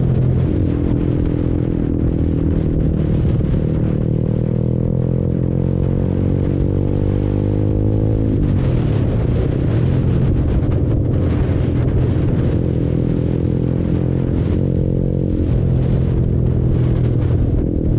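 Honda CBR150R single-cylinder engine under way, heard from the rider's seat over wind rush. The revs hold steady, then climb for a few seconds, fall sharply about eight seconds in, and settle into a steady pull again.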